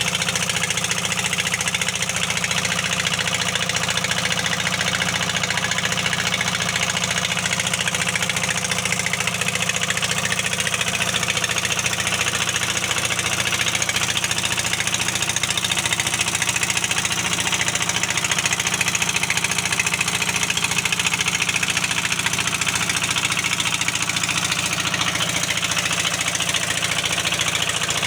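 Heavy-equipment diesel engine running steadily at a constant speed, with an engine knock that points to a cylinder problem.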